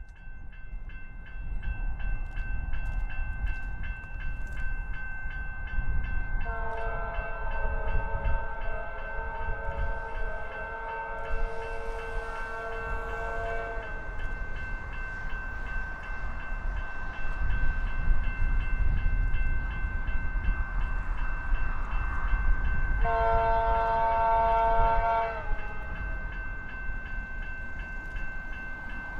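Diesel freight locomotive's horn sounding a long chord of several notes, then a second, shorter blast later, over the low rumble of the train as it approaches. A steady high-pitched tone sits underneath.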